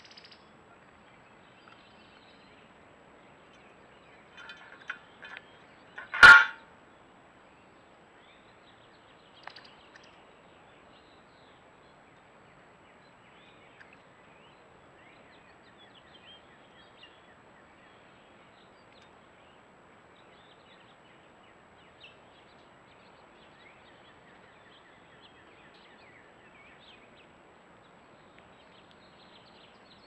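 Backyard birds calling faintly at a feeding station, with one loud, short, sudden call close by about six seconds in.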